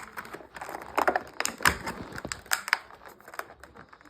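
Cardboard-and-plastic toy packaging being handled and worked open: irregular clicks, taps and crackles.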